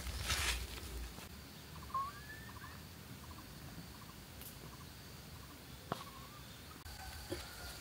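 Birds calling: a short rising chirp about two seconds in, followed by a run of faint quick chirps, with a brief burst of noise at the very start and a single sharp click near six seconds.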